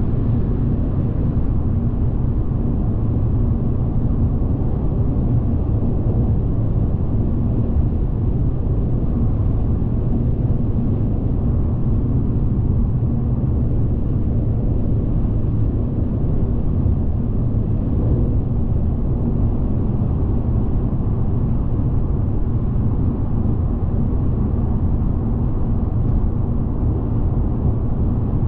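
Steady low drone of a car driving along: tyre and engine noise at an even level.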